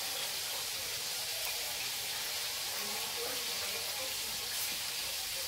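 Steady sizzling hiss of food frying in a pan on the stove.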